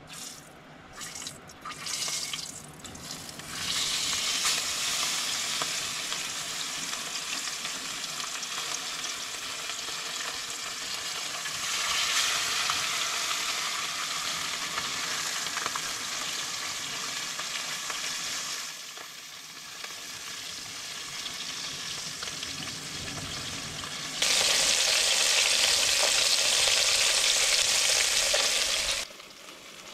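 Biquara fish frying in hot oil in a pan: a steady sizzle after a few clicks at the start. It grows louder about twelve seconds in, eases off, then turns much louder in the last few seconds before cutting off suddenly.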